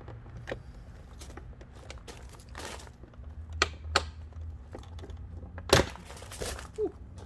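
Plastic front-bumper trim on a Toyota Tacoma being pulled off by hand, its retaining clips popping loose in a series of sharp clicks, the loudest a little under two seconds before the end, with some plastic rustling and creaking between them.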